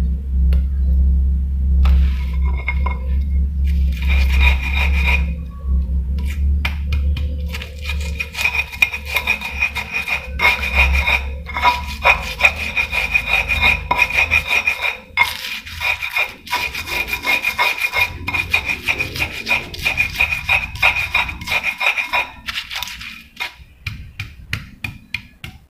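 Stone pestle grinding and crushing dried red chilies, garlic and spices in a stone mortar (cobek and ulekan): quick, repeated scraping and grinding strokes of stone on stone. A low rumble runs under the first half.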